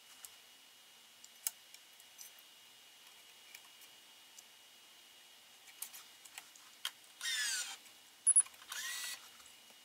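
Electronic tensioner of a Gamma 6004 badminton stringing machine: a short motor run with a sliding whine about seven seconds in as it pulls a cross string, two sharp clicks, then a second brief motor run near the end. Light clicks of string and clamps being handled come and go.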